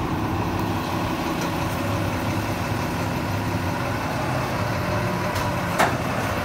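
Diesel engine of heavy construction machinery idling steadily, with one sharp knock near the end.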